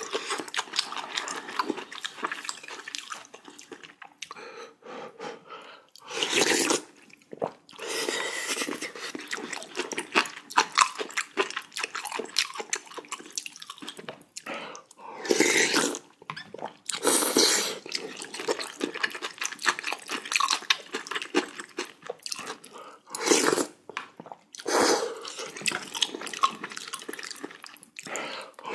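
Close-up eating sounds: chewing and slurping of spicy jjamppong noodle soup and broth-soaked rice, with crunching of kimchi. A handful of louder, longer slurps stand out among the steady chewing.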